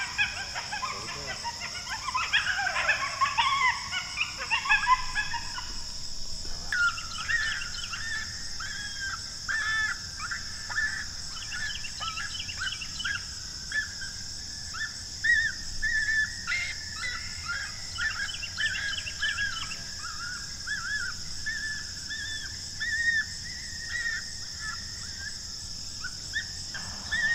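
A group of coyotes yipping and howling together, a tangle of overlapping wavering calls that dies away after about six seconds. A long run of short, arching whine-like calls follows, over a steady high insect drone.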